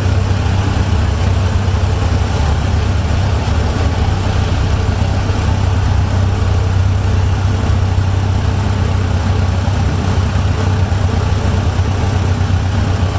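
A vehicle engine running steadily at a constant low speed, with a loud, even low hum and no change in pitch.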